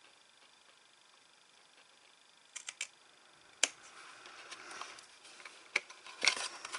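Small craft scissors snipping a sliver off a cardstock box's tuck-in flap: quiet at first, then a few sharp clicks from about two and a half seconds in, with the card rustling as the box is turned in the hands.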